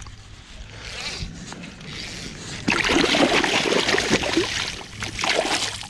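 Hooked sea trout thrashing at the surface close by: light water movement at first, then loud, continuous splashing from about two and a half seconds in.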